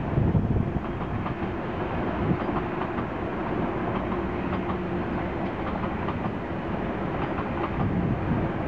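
ICE high-speed electric multiple unit passing, its wheels clattering over rail joints and points over a steady rushing noise. A faint steady hum sits under it for a few seconds in the middle.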